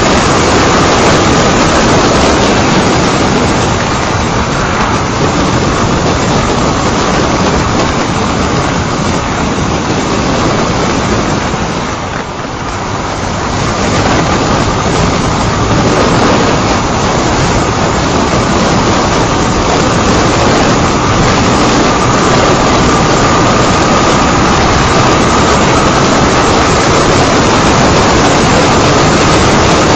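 Wind rushing over the microphone on a Honda CBR125 motorcycle riding at speed, with its single-cylinder engine running underneath. The noise eases briefly about twelve seconds in, then builds again.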